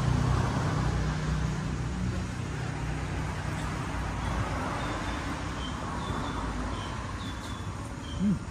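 Road traffic noise: a vehicle's low engine hum, strongest at first and fading over the first few seconds, over a steady background of passing traffic, with a few faint short high chirps.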